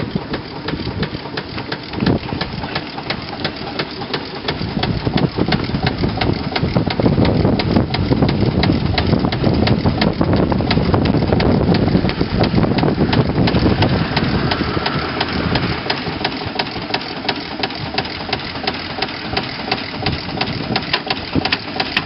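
1906 Russel steam engine running, with a rapid, even beat of exhaust chuffs and mechanical knocks. It gets louder about five seconds in and eases back after about fifteen seconds.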